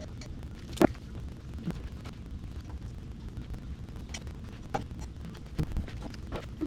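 Small clicks and knocks of engine parts and tools being handled during hand assembly, the sharpest about a second in, with a few lighter ones later, over a steady low rumble.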